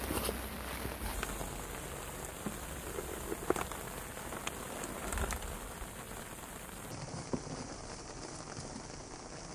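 Water dripping and splashing lightly onto the pond surface, a steady patter with a few sharp small ticks scattered through it.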